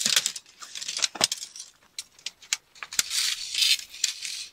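Aluminium (duralumin) tent pole sections clinking and clicking as they are shaken out and joined, with rasping slides of metal between the clicks.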